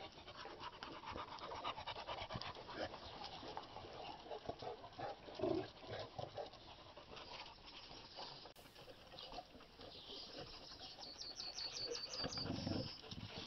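Shar pei puppies and other dogs playing together, panting and scuffling.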